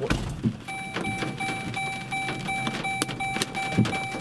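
Large hailstones hitting the vehicle in scattered sharp clicks and knocks, with a heavier thump a little before the end. Under them a car's electronic warning chime beeps rapidly, about three times a second.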